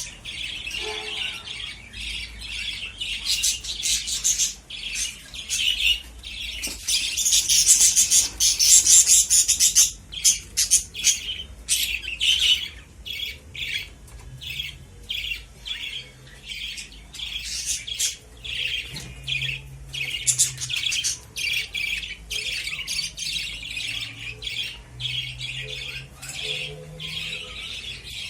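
A group of lovebirds chattering: a dense, continuous run of short shrill chirps and squawks, loudest about seven to ten seconds in.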